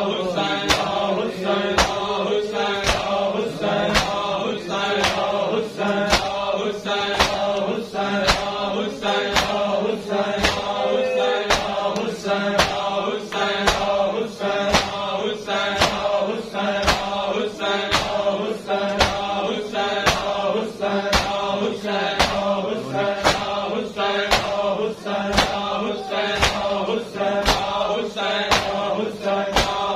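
A group of men chanting a noha while beating their chests in matam, the palm slaps landing together as a steady beat a little faster than one a second.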